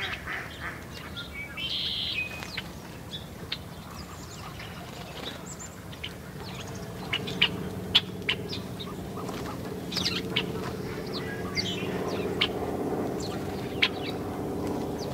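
Small songbirds chirping with many short, sharp calls. A low, steady hum grows in from about halfway.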